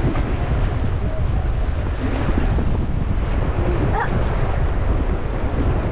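Rushing river water with wind buffeting the microphone, a loud steady roar heaviest in the low end.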